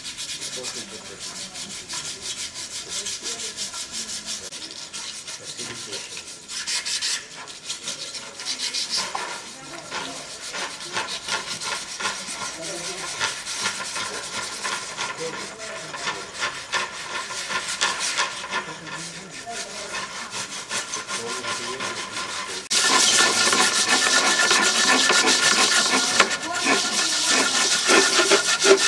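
Quick, dense scraping strokes of hand tools working thin wooden cut-outs, going on steadily and becoming clearly louder about three-quarters of the way through.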